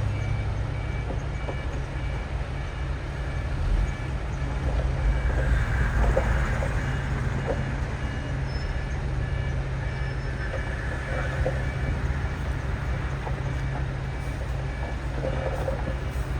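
Heavy diesel earthmoving machinery running steadily at work, with intermittent metallic clanks and squeaks and a faint repeating beep.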